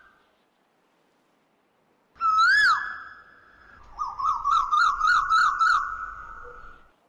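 Whistle-like pitched calls: one rising-and-falling swoop about two seconds in, then a warbling tone that wavers up and down about three times a second for some three seconds.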